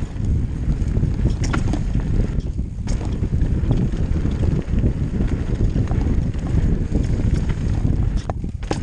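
Mountain bike descending a dirt forest singletrack at speed: a steady low rumble of tyres on the trail and wind on the microphone, with scattered clicks and rattles from the bike.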